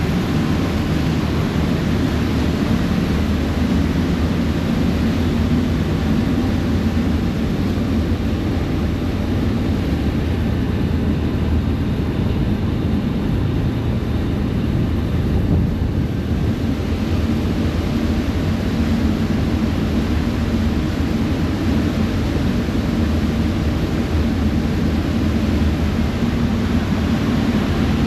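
Passenger ferry under way: a steady low engine rumble mixed with wind and rushing water on the open deck. The hiss drops a little for several seconds around the middle.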